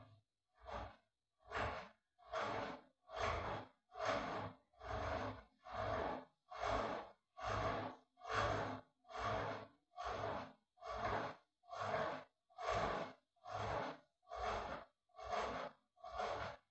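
Rhythmic breath-like hissing, a little more than one breath a second, each about half a second long with silence between, steady in pace throughout.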